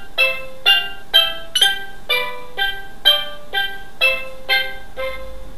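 Electronic melody from a children's sound book's speaker: single plucked-sounding notes, about two a second, each fading quickly. The tune stops shortly before the end.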